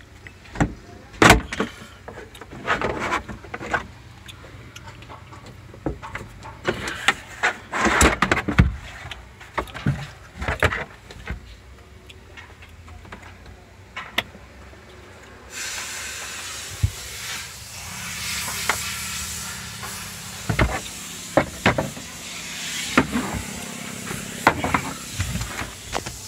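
Plastic trim panel being pulled off by hand: a series of sharp clicks, pops and knocks from its push clips and from plastic being handled. From about the middle on, a steady hiss runs underneath.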